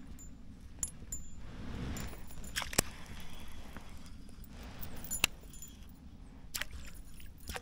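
Light metallic clinks and sharp clicks of fishing tackle as a spinnerbait with metal blades is cast from a baitcasting reel and reeled back, with a brief hiss of line running out about two seconds in.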